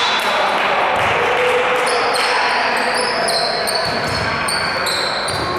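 Basketball game on a gym court: a ball bouncing in a few low thuds, with many short high squeaks of sneakers on the hardwood over a steady background of voices.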